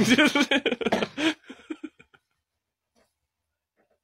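A man's voice talking for about a second and a half, trailing off into silence.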